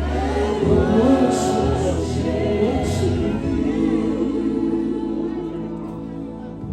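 Gospel music with a choir singing over held backing chords, growing quieter near the end.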